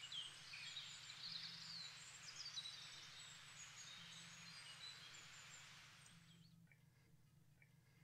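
Faint birds chirping and calling over a soft hiss, fading out about six seconds in, with a low hum continuing underneath.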